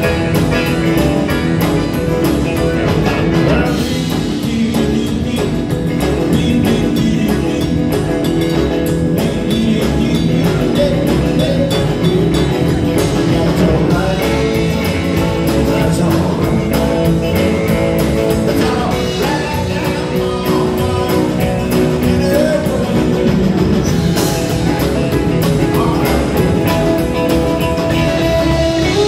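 Live rock and roll band playing an upbeat number: electric guitars, bass, drum kit and keyboard with a steady beat.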